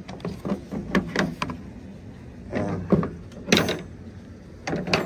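Replacement tailgate step cap trim piece being handled: a series of short knocks and rattles in several separate clusters.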